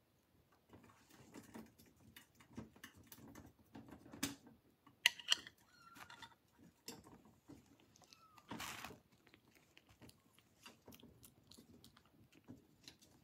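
Kitten eating wet cat food: faint, irregular chewing and lapping with small wet clicks. There are a couple of sharper clicks about five seconds in.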